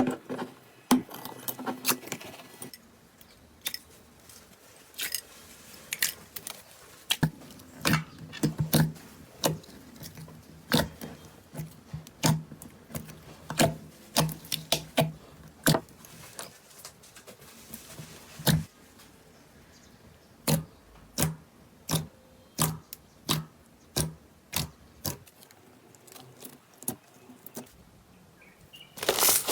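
Slime being pressed and squeezed by hand, giving a string of sharp, irregular pops and clicks, about one or two a second.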